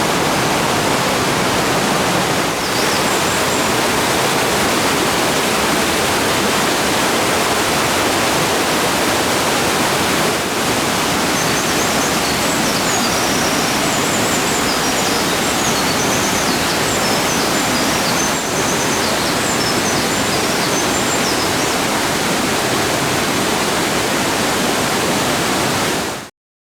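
Mountain stream rushing steadily, with small songbirds twittering faintly over it: a short phrase about three seconds in and a longer run of quick high chirps from about 11 to 22 seconds in. The sound cuts off abruptly just before the end.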